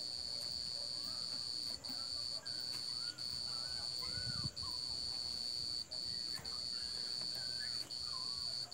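A shrill, steady drone of night insects, broken by brief gaps every second or so, with faint short chirps rising and falling underneath and a short low rumble about halfway through.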